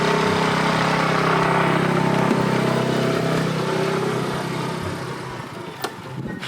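A vehicle engine running steadily with an even hum, then fading down over the last two seconds.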